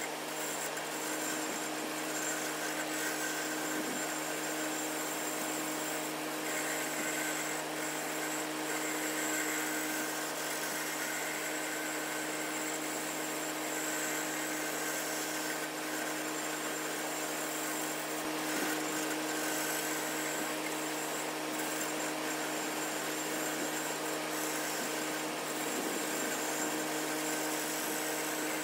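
Wood lathe running steadily while a turning gouge cuts into a spinning oak blank, shaping it round: a constant motor hum under continuous cutting noise.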